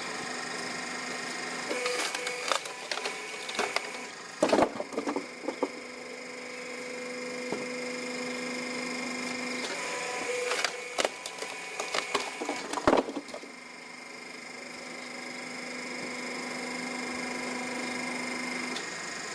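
Hydraulic wood-processing machine running with a steady whine that shifts under load, with bursts of wood cracking and splintering a couple of seconds in and again about halfway through.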